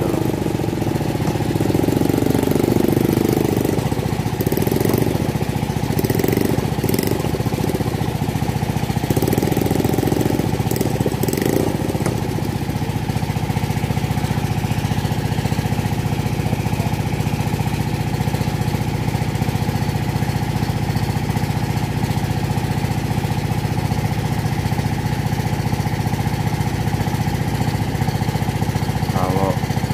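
An engine runs steadily at an even speed throughout. During the first dozen seconds, shovel scrapes and knocks in clay sound over it.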